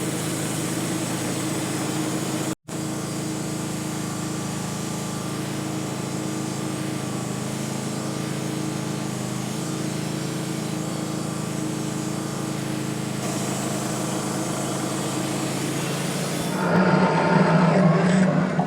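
Portable band sawmill's gas engine running steadily under load as the band blade cuts a slow pass through a knotty pine log. The sound cuts out for a moment early on and grows louder near the end.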